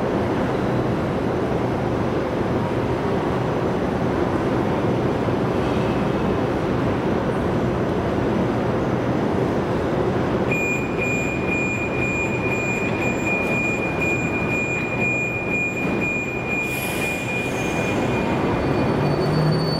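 Budapest Metro Line 4 Alstom Metropolis train standing at an underground platform with a steady hum. A steady high tone starts about halfway through and runs until just before the end, and a short burst of noise comes about three-quarters in as the doors shut. Near the end the traction motors start to whine as the train begins to move off.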